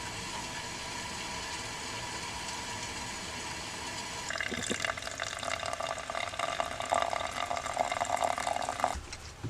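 Water running and pouring into a container for about four and a half seconds, starting a few seconds in and cutting off abruptly near the end.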